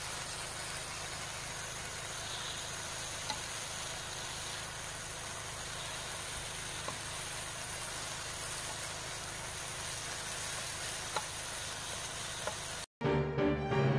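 Marinated bulgogi sizzling steadily in a grill pan, with a few faint clicks as it is turned with tongs.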